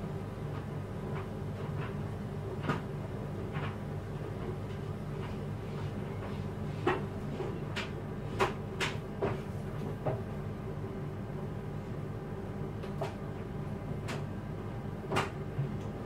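Scattered light clicks and taps, about a dozen at irregular moments, from a plastic modelling tool and fingers working fondant on a craft mat. Under them runs a steady low hum.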